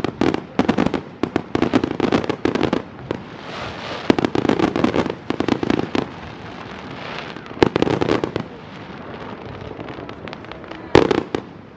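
Aerial fireworks bursting close by: volleys of rapid bangs and crackling shells in bunches, with short lulls between them and the sharpest salvo near the end.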